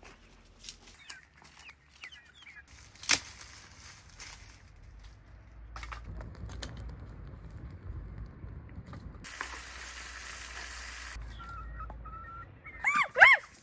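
Outdoor farmyard sounds: faint small-bird chirps, a single sharp knock about three seconds in, and a stretch of hiss. Near the end come two loud rising-and-falling calls from a chicken.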